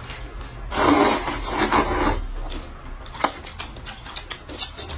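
Close-up eating sounds: a noisy slurp lasting about a second and a half, starting about a second in, followed by a few light clicks of chopsticks and a spoon against food cups.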